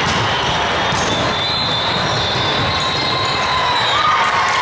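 Volleyball being struck in a large, echoing hall, with sharp smacks near the start and again near the end, over a steady din of play and spectators from many courts.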